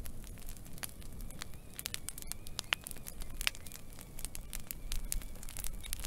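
Wood fire of burning twigs crackling, with irregular sharp pops and snaps over a low steady rumble of flame.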